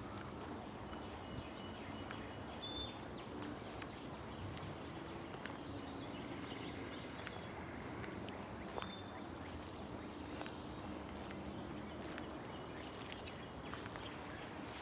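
Songbirds singing in woodland: a short phrase of a few high, falling notes, repeated about six seconds later, and a brief high trill, over a low steady hum and scattered faint clicks.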